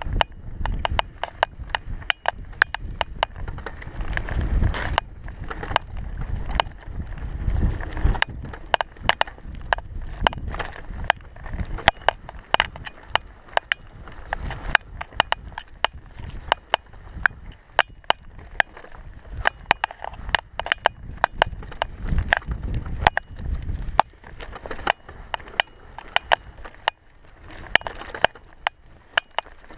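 Mountain bike rattling over a rough dirt trail, ridden from the rider's viewpoint: a dense, irregular run of clicks and knocks from the bike, over a low rumble that swells and fades.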